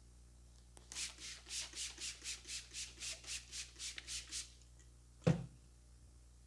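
A barber's hands rubbing briskly in a head massage: about fourteen even, hissy strokes at roughly four a second for three and a half seconds, then a single dull thump about five seconds in.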